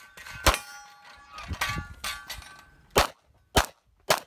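Handgun shots at steel targets: one shot about half a second in, then metallic clangs and ringing from struck steel, then three more quick shots about 0.6 s apart near the end.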